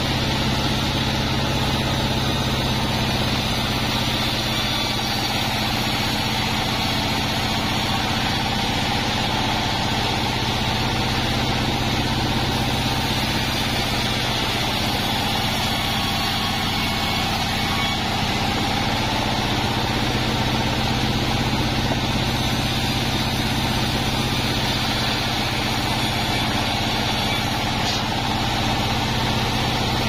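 A 36-inch sawmill band saw running steadily while wadang wood is fed through its blade, cutting along the length of a bark-edged plank. The machine's drone stays even, with no pauses or changes.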